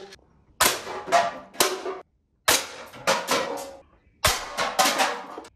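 Toy gun's electronic gunfire sound effect firing in quick bursts: three groups of three or four sharp bangs, each bang ringing briefly, with short pauses between the bursts.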